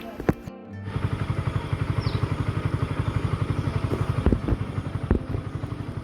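A small engine running with a steady, fast throb of about ten beats a second, with a few louder knocks in the second half.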